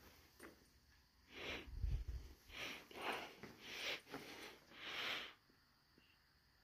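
A person sniffing and breathing close to the microphone: about five short, soft breaths over four seconds, with a low handling bump around two seconds in.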